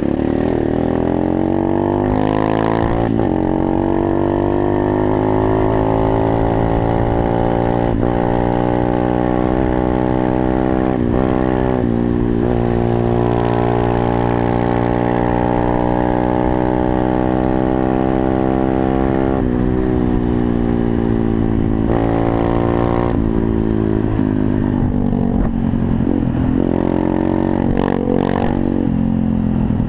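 A 125cc pit bike's single-cylinder four-stroke engine running hard under way, its note climbing as it pulls and breaking off sharply several times at gear changes. A low wind rumble lies underneath.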